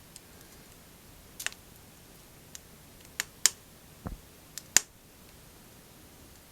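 Firewood crackling in a small wood stove: a handful of sharp, irregular pops, the loudest a little past the middle, one with a low thud.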